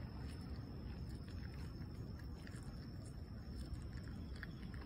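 A cat chewing fish, with faint short wet clicks scattered through it, over a steady low outdoor rumble.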